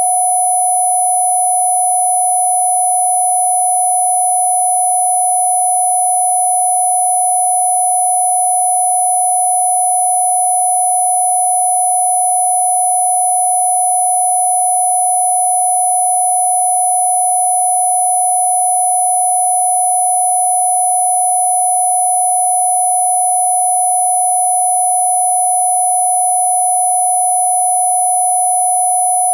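Synthesized Rife-style healing-frequency tones: several pure sine tones held perfectly steady and unbroken. The loudest is mid-pitched, with another strong very high-pitched tone and fainter high tones between and above.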